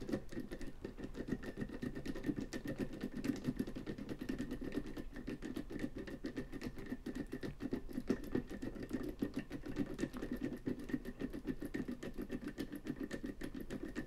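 Tubular lock pick being turned and worked under tension in a tubular lock, its needles and the lock's pins making a rapid, irregular run of fine metallic clicks throughout.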